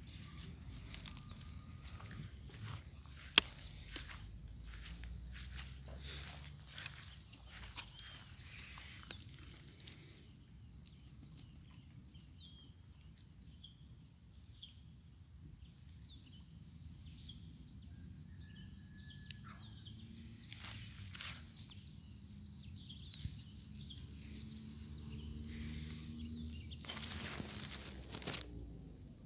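Steady, high-pitched insect chorus, a continuous shrill trilling, with scattered rustles and handling clicks and one sharp click about three seconds in. Near the end, grass and leaves brush loudly against the microphone.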